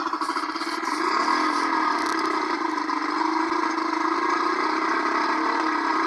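An engine running steadily, its pitch rising a little about a second in.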